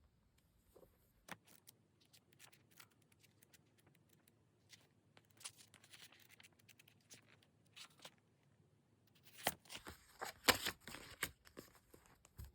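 Packaging being handled and torn open, with crackling and rustling that gets busier and louder near the end.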